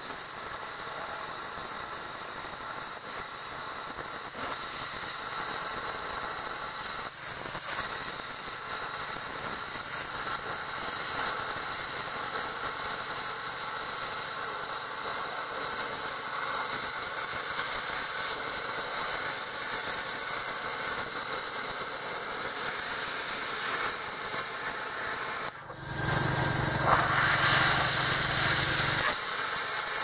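Handheld plasma cutter cutting steel plate: a steady hiss of the arc and compressed air. It breaks off for a moment about 25 seconds in, then starts again.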